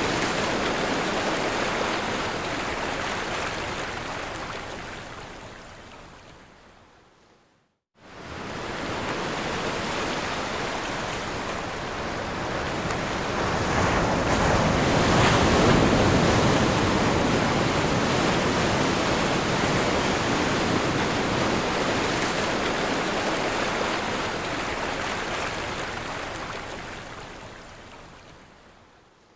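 Ocean surf breaking on a shore, a steady rushing wash of water. It fades away to silence about seven seconds in, then the surf comes back, swells to its loudest around the middle and fades out again near the end.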